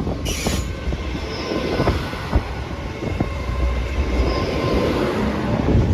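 Great Western Railway Class 800 bi-mode train moving out of the station, a steady low rumble of its underfloor diesel engines and wheels with a faint whine over it.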